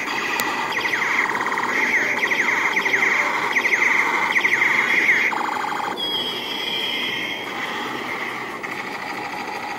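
Toy jeep's electronic sound chip playing a siren-like alarm effect: rapid falling sweeps repeating for about four seconds, cutting off and switching to a higher, steadier tone about six seconds in.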